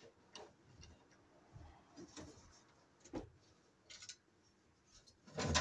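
Faint, irregular clicks and taps of a screwdriver and screws on a steel breaker-panel cover as it is unscrewed, with a louder metal knock near the end as the cover is handled.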